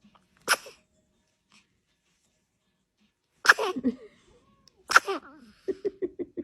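A baby sneezing three times: a small sneeze about half a second in, then two louder sneezes about a second and a half apart, each with a short voiced tail. Near the end comes a quick, even run of short vocal sounds, about four a second.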